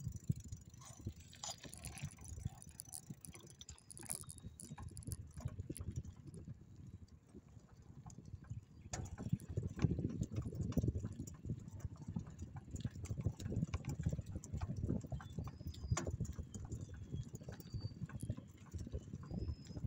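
A bike rattling and jolting over rough ground: a fast, irregular low knocking that gets louder about halfway through.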